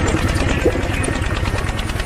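Miniature model diesel water-pump engine, driven by a small electric motor, running steadily with a fast, even clatter while it pumps water.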